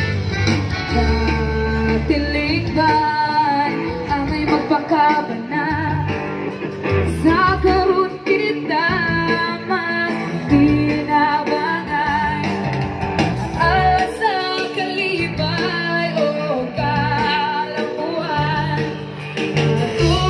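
Live music played loud through a PA system: a singer's wavering melody over guitar and a pulsing bass line.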